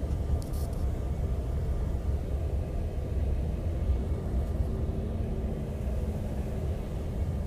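Cabin noise of a Bombardier CRJ-700 regional jet during its landing: a steady low rumble from its rear-mounted turbofan engines and the airflow. A steady low hum joins the rumble about two seconds in.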